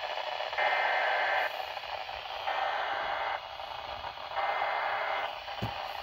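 Three harsh digital data bursts, each about a second long and a second apart, from a Midland weather radio's speaker over steady static hiss: the SAME coded bursts that an emergency alert broadcast carries. A short thump comes near the end.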